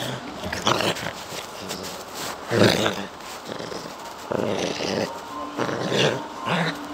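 Poodle growling in several short bursts at a hand reaching toward it: protective guarding of its owner, warning others not to come near.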